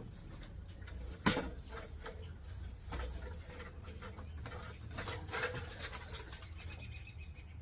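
Rustling and scraping of nest sticks and debris being handled, with one sharp knock about a second in, over a low steady rumble.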